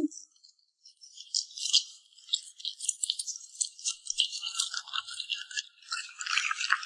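A puppy chewing and smacking its lips, close up: a rapid, irregular run of crisp wet clicks and crunches that starts about a second in.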